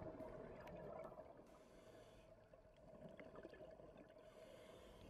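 Near silence, with faint underwater gurgling and hiss and a steady faint hum.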